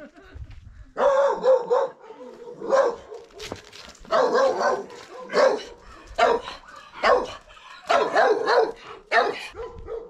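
A dog barking repeatedly: a series of loud barks, roughly one a second.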